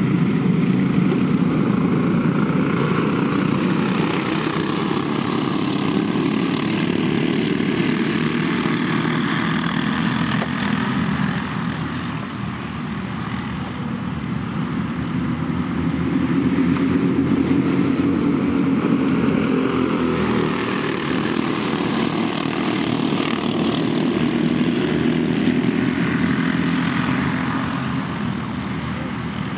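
A pack of dirt-oval racing karts with box-stock clone engines, small single-cylinder four-strokes, running together at race speed. The engine noise is continuous, swelling and fading as the pack goes round the oval, with a dip about halfway through and again near the end.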